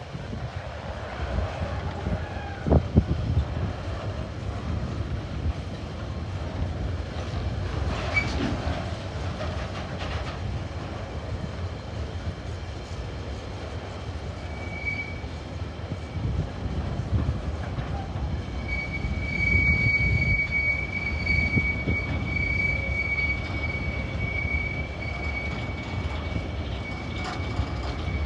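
Freight train wagons rolling past with a steady low rumble and a few sharp clunks early on. About halfway a thin, high, steady wheel squeal sets in and holds to the end.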